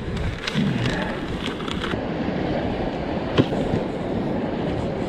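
Steady rushing of wind on the microphone and sea surf against the rocks, with one sharp click about three and a half seconds in.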